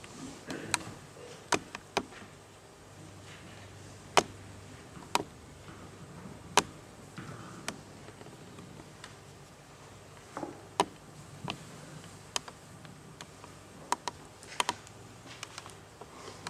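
Footsteps and small knocks in a quiet church: about fifteen sharp, irregularly spaced clicks over a low room hum as someone moves about.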